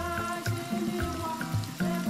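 Background music with a steady beat, over the faint sizzle of breaded chicken strips deep-frying in hot oil.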